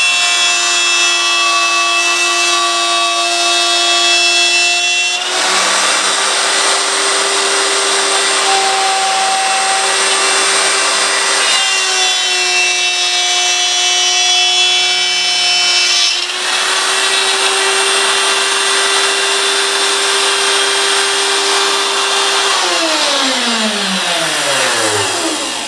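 Electric router running at full speed, cutting a curved slot in MDF, its pitch stepping slightly up and down a few times. About 22 seconds in it is switched off and its whine falls away as the motor spins down.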